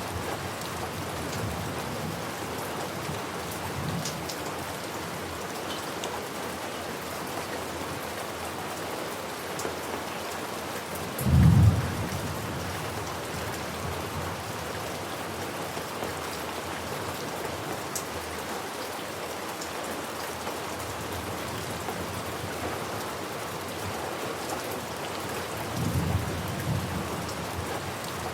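Steady heavy rain on a surface, with a short, loud clap of thunder about eleven seconds in and a softer rumble of thunder near the end.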